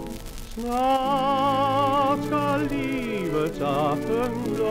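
Orchestral dance-band music from a 1940s Polyphon 78 rpm shellac record: a melody line with heavy vibrato enters about half a second in over sustained accompaniment, with a short downward slide near the end. Surface crackle from the record runs underneath.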